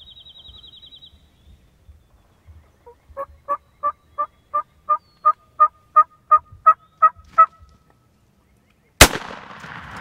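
A wild turkey yelping: about a dozen evenly spaced calls, roughly three a second, growing louder. About nine seconds in, a single shotgun blast, the loudest sound, is followed by a rush of noise as turkeys flush and flap their wings.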